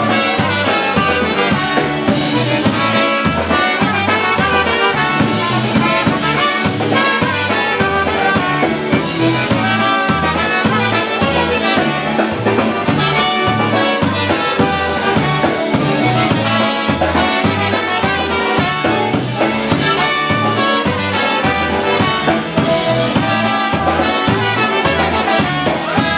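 Polka band playing an instrumental break between sung verses: trumpet carrying the melody over concertina, piano accordion, electric bass and drums, with the bass and drums keeping a steady beat.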